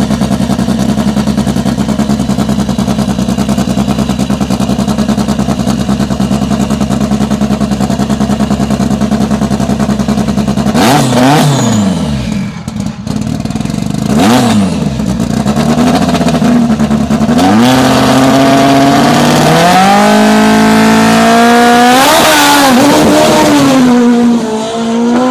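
Lancia Delta S4's supercharged and turbocharged four-cylinder engine held at steady revs with an even, lumpy pulse, blipped sharply twice about halfway through, then launched hard, its pitch climbing in steps through several upshifts before dropping near the end.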